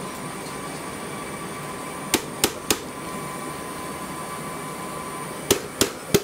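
Hand knocking on the aluminium casing of a Delphi drive-thru order display to jolt its failing LCD: three sharp knocks about two seconds in and three more near the end. Underneath is the steady whir of the unit's cooling fans, whose worn bearings chatter.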